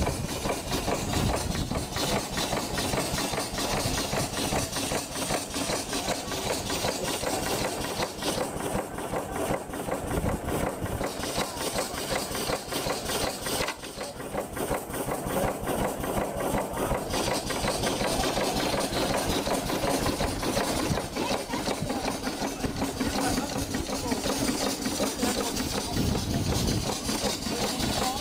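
Portable steam engine running, its crank and flywheel turning, with a steady rhythmic working sound throughout.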